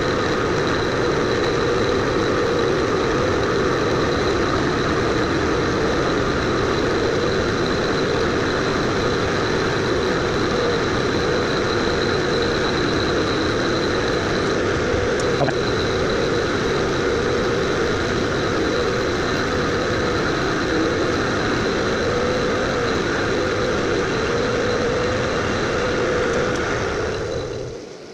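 Bridgeport milling machine spindle running a fly cutter at 660 rpm, taking a 0.020-inch facing cut across an aluminium block: a steady machining drone with a thin high whine. It falls away about a second before the end.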